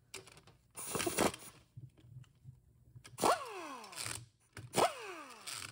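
Handheld pneumatic (air) tool run in short bursts on the bolts of a 4R70W transmission pump: a brief burst about a second in, then two more near the end, each starting sharply with a whine that falls in pitch.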